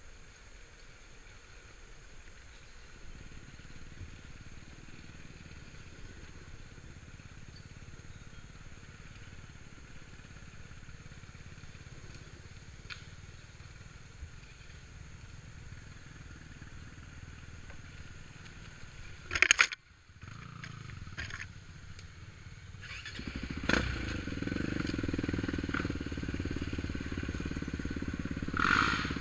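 ATV engine: a faint low running sound, then a short loud burst about two-thirds of the way in, and over the last few seconds a louder, steady engine sound with a few sharp clicks.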